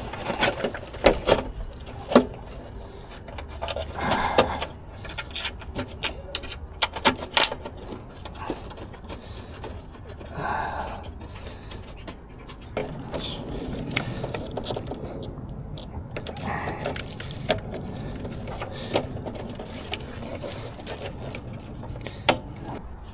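Scattered clicks, knocks and scrapes of hands handling parts and tools while an engine control module is being fitted back into the vehicle.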